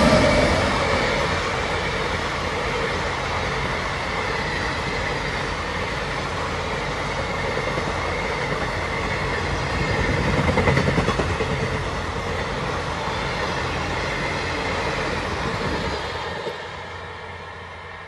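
Passenger train coaches behind a WAP-7 electric locomotive rolling past close by: a steady rumble and clatter of wheels on the rails, swelling once midway and dying down near the end. At the start a horn note from the locomotive fades out as it passes.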